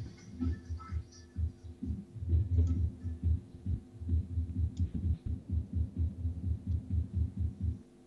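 Deep electronic bass thumps in a fast, uneven beat, several a second, played live on a pad controller and heard over the video chat.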